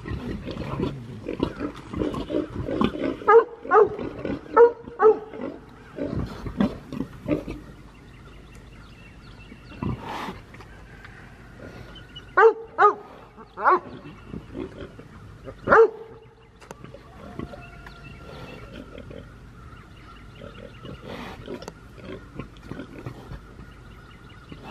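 Pigs calling, from a nursing sow and her piglets, in short, loud cries: a quick run of them in the first five seconds and another cluster about halfway through, with quieter sounds between.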